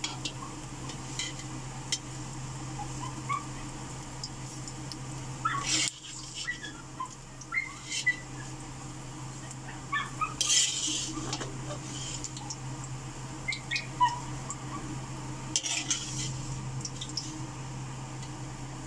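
A metal spatula scraping and clinking against a wok now and then as pieces of fried pork belly are scooped out of the rendered fat, over a steady low hum.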